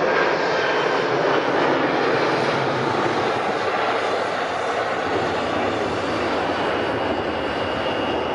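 Boeing 757 freighter's twin jet engines at takeoff thrust as it climbs out just after liftoff: a loud, steady roar with a thin whine above it, easing off slightly as the aircraft pulls away.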